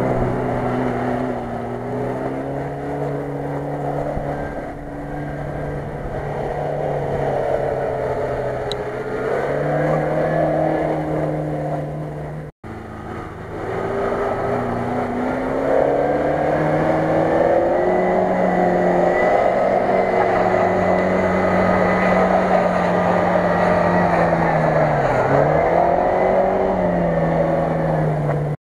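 Motor noise with several pitches stepping and gliding up and down throughout, cutting out briefly about twelve seconds in.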